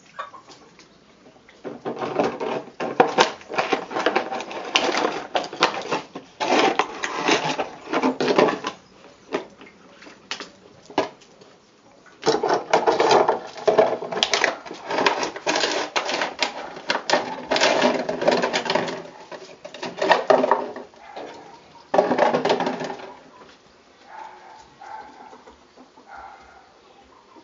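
Puppies chewing and tugging at an empty plastic water bottle, the plastic crackling and crunching in long bursts of several seconds, quieter over the last few seconds.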